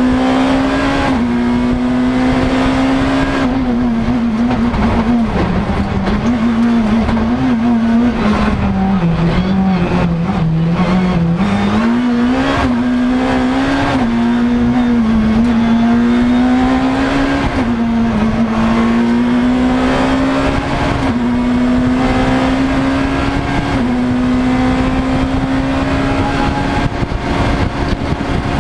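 Škoda Fabia S2000 rally car's 2.0-litre four-cylinder engine at full throttle, heard from inside the cockpit. Its pitch climbs steadily and drops sharply at each upshift, sinks lower for a few seconds around the middle, then climbs back up through the gears.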